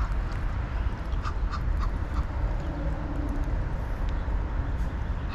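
Wind rumbling on the microphone, with a few faint short ticks between about one and two seconds in.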